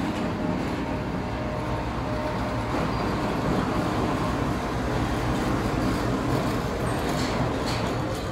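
Express passenger train pulling in alongside the platform: a diesel locomotive passes with a steady loud rumble, then its coaches roll by.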